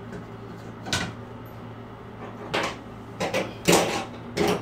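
Several sharp knocks and clatters as a chrome shower trim plate is handled and set against a tiled wall, the loudest a little under four seconds in.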